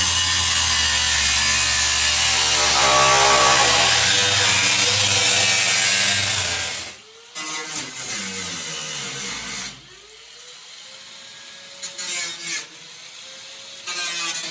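Power tool cutting through the rusted sheet-metal trunk floor of a 1972 Plymouth Duster. It runs loud and steady for about seven seconds, then stops suddenly, followed by quieter, broken cutting with short louder bursts near the end.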